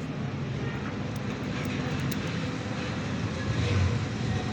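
A steady engine drone, with a few light metallic clicks in the first half.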